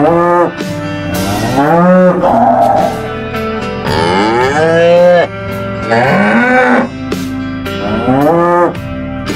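Cattle mooing: about five long calls, each rising and then falling in pitch, over light background music.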